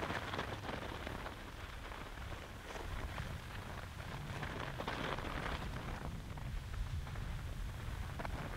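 Skis scraping and hissing on snow through a series of turns, each turn a swelling hiss. A steady low wind rumble on the microphone runs underneath.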